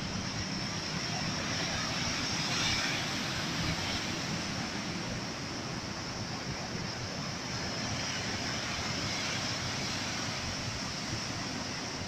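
Sea surf breaking and washing over rocks: a steady rush of water that swells about two to four seconds in and again later.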